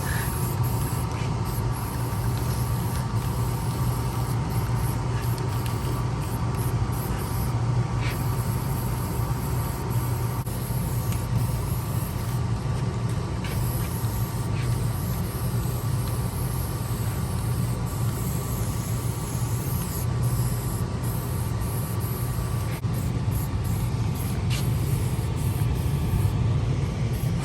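A steady mechanical hum with a hiss over it, unchanging throughout, with a few faint ticks.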